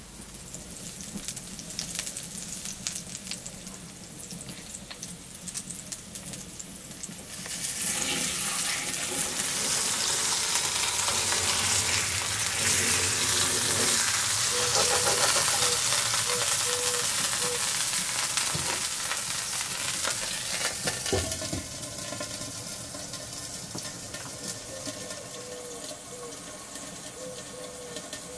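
A dry-aged pork chop laid on a hot, oiled clay grilling plate: about seven seconds in a loud sizzle starts suddenly, then after about twenty seconds it settles into a quieter, steady frying sizzle. Before the sizzle there is faint crackling.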